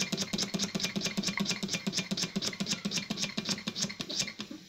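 Scratch-built live-steam model steam engine running fast, its exhaust chuffing and parts clattering in a rapid, even beat. The beat cuts off suddenly near the end.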